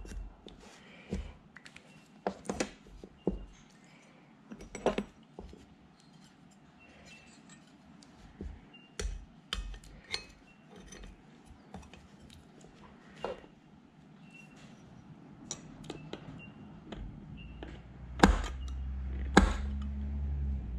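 Hand tools clinking and tapping on a workbench: a steel rule with a centre-finder head and a metal scriber being picked up, set down and positioned against a small metal part, in scattered sharp clicks. A low steady rumble comes in near the end, with two louder clicks.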